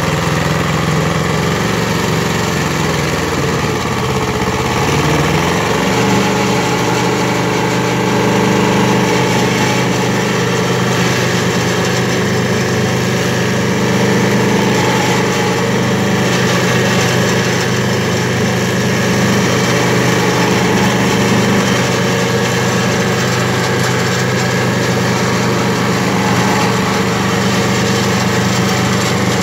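Petrol engine of a Predator stump grinder running hard while its cutter wheel grinds into a large sequoia stump. The engine note shifts about five seconds in, then holds steady.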